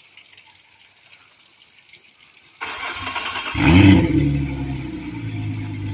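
Suzuki 250 hp four-stroke V6 outboard, freshly rebuilt with new head gaskets, cranked by its starter about two and a half seconds in. It catches within about a second, revs up briefly and settles into a steady idle.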